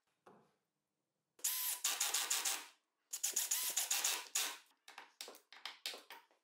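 Drill-driver driving the caster wheel's mounting bolts into the plywood base, two runs of about a second each, followed by a few short clicks.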